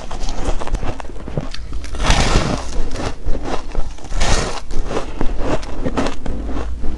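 Close-miked chewing of packed shaved ice, a run of small crunches and crackles, with two louder, longer crunches as the ice block is bitten: one about two seconds in and another just after four seconds.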